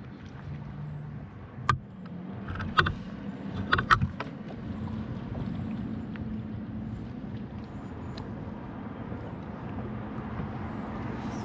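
Sea-Doo FishPro personal watercraft engine running steadily, with a few sharp knocks or clicks a couple of seconds in.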